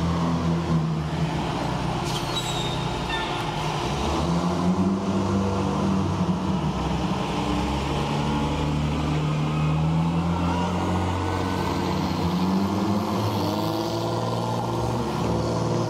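Engine of a military flight-line tow tractor running as it pulls a loaded munitions trailer, its low hum rising and falling slightly in pitch.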